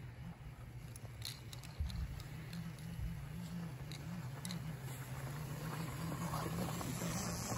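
A child's small quad (four-wheeler) running at low speed: a low, steady motor hum that wavers slightly in pitch and grows a little louder towards the end as it comes closer, with faint scattered clicks.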